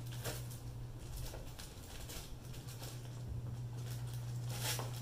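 Clear plastic packaging around a laptop sleeve rustling and crinkling as it is handled and picked open, in short scattered rustles, over a steady low hum.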